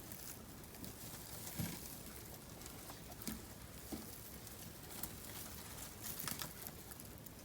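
Faint, scattered taps and rustles of pet tortoises moving about and feeding, with a few sharper clicks about a second and a half in, near the middle and towards the end.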